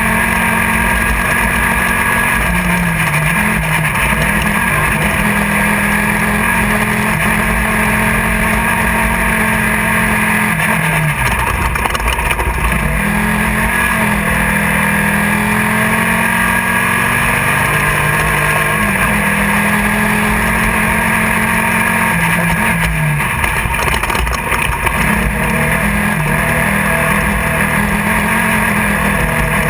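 Race car engine heard from inside the car, held at high revs. Its pitch drops and climbs back several times, most deeply about eleven seconds in, as the driver lifts off or shifts. A constant loud noise from the car covers the whole stretch.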